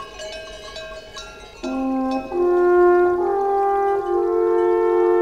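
Intro music: a light melody of short notes, then, about one and a half seconds in, held brass-like chords come in, step upward and swell louder.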